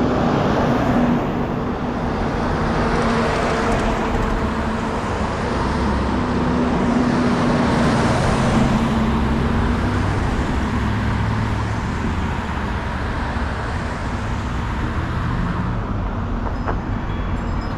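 Steady road traffic: motor vehicles running and passing close by, with a few steady engine hums.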